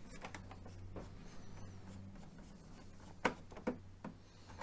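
A screwdriver turning a small screw out of an Epson XP-950 printer's plastic housing: faint scraping, with a couple of soft clicks near the end as the screw comes free.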